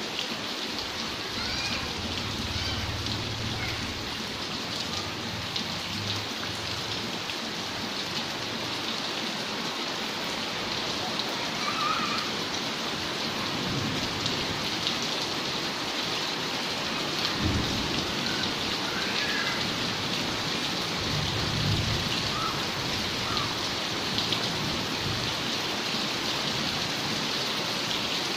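Steady rain falling, an even hiss of many drops, with a few low rumbles in the first seconds and twice more later on.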